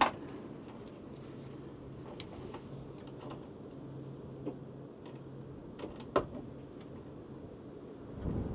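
Sharp clicks and small ticks of hand tools on electrical wiring, a wire stripper and crimp tool working the ends of the pump motor's wires and connectors. One click comes right at the start and the loudest pair about six seconds in, over a faint low hum.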